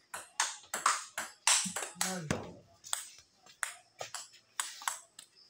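Table tennis ball clicking off rubber paddles and the andro table in quick succession during play, a couple of hits every second. A short vocal call about two seconds in.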